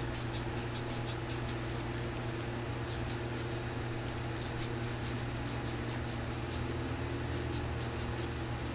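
A coin rubbed hard with a nearly dried-out piece of polish-soaked cotton wadding: a run of quick, irregular, scratchy rubbing strokes. A steady low hum runs underneath.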